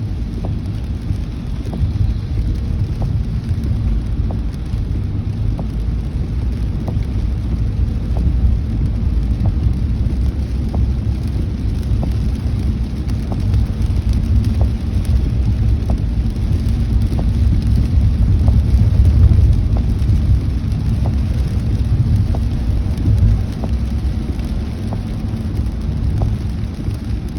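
Car driving on a wet freeway in the rain, heard from inside the cabin: a steady low rumble of tyres and road noise mixed with rain, with faint light ticks recurring at a regular pace.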